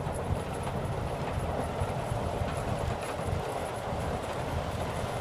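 Beilhack rotary snowplow rolling along the track with its engine running, a steady low rumble.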